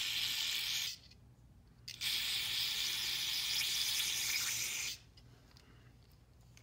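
Aerosol cleaner hissing through a red extension straw into the bore of a motorcycle's rear brake master cylinder, flushing out sand-like grit. There are two bursts: one that stops about a second in, and a longer one from about two seconds to five seconds in.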